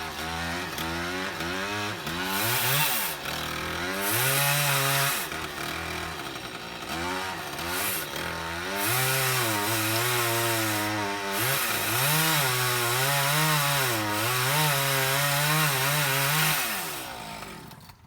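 Chainsaw cutting through wood, its engine revving up and down repeatedly as it works through the cut, then throttled off near the end.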